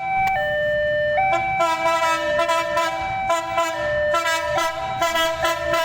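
Telolet-style multi-tone musical horn on a Babaranjang coal train, playing a tune: held notes step between pitches, then break into quick repeated toots from about a second and a half in. A low rumble from the train runs underneath.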